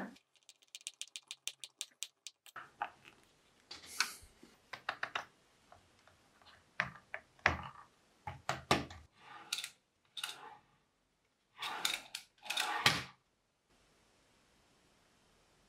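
Workshop handling noise from wooden and aluminium jig parts on a plywood bench. First a quick, evenly spaced run of small clicks for about two seconds, then irregular knocks, taps and short scrapes as the parts are moved and set down. The knocking stops about two seconds before the end.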